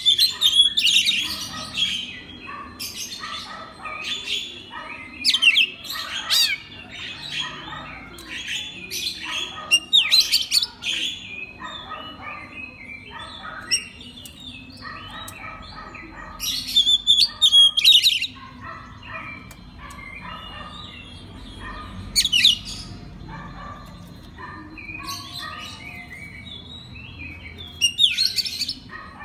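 Oriental magpie-robin (kacer) singing a long, varied song of whistles, trills and chattering notes, with louder bursts every few seconds.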